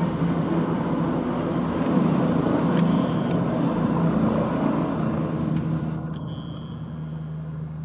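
Leonardo AW169 twin-turbine helicopter's rotors and engines as it climbs away after take-off, heard through window glass; the steady noise fades over the second half as it flies off.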